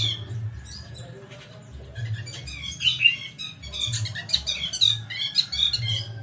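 Hairy-backed bulbul (brinji rambut tunggir) singing: bursts of quick, chattering chirps, with a low hum coming and going underneath.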